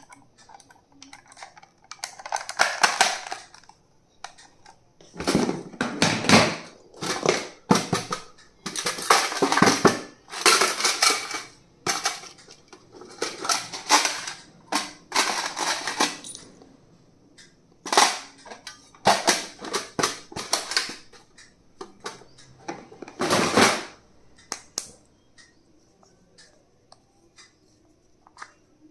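Plastic stationery items and packaging being handled: irregular clicks, taps and rustling in bursts, fading to a few faint clicks over the last few seconds.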